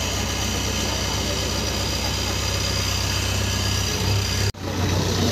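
JCB 3DX backhoe loader's diesel engine running steadily as the machine drives along, with a brief drop in the sound about four and a half seconds in.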